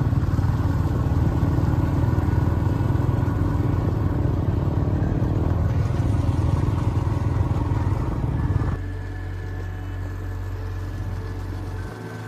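Motorcycles running along a dirt track: a loud, rough engine rumble that drops about nine seconds in to a quieter, steadier engine hum.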